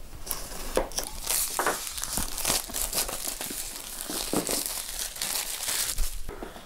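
Clear plastic wrapping crinkling and tearing as it is pulled off a small packaged box, in an irregular run of crackles with a few light knocks.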